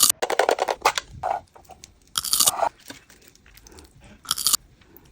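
Close-up crunching bites of food: a quick run of crisp crunches in the first second, then single loud crunches about two seconds apart.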